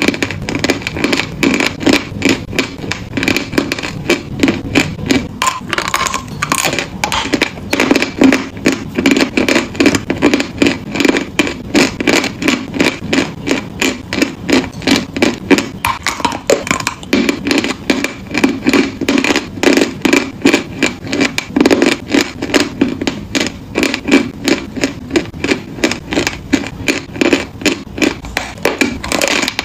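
Close-miked chewing of crunchy chalk: a quick, even run of crunches that goes on without a break.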